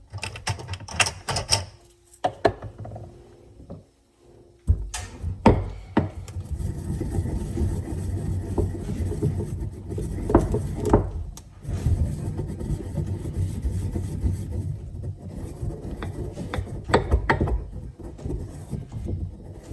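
Small electric grinder running loudly, grinding rosemary finer. It starts about five seconds in after a few knocks of handling, dips briefly about halfway through, and runs on until near the end.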